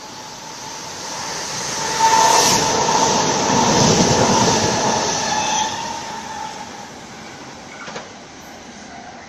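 Double-deck electric suburban train running through the platform at speed. Its rumble builds, is loudest for about three and a half seconds as it passes close with a steady high ringing tone, then falls away.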